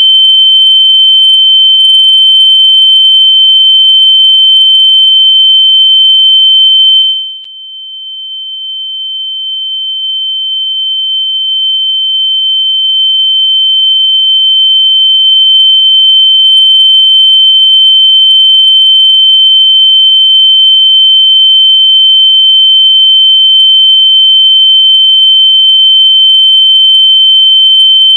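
A loud, steady, high-pitched electronic tone at a single pitch, generated to be played through lost AirPods so they can be found by ear. About seven seconds in it dips sharply in loudness, then swells back to full level over the next several seconds.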